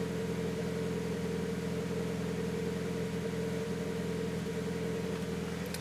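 Turbocharged 2000 Honda Civic EX four-cylinder engine idling steadily, heard from inside the car. The engine is running very rich.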